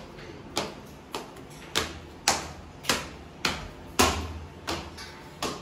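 A series of sharp taps or knocks, evenly spaced at a little under two a second.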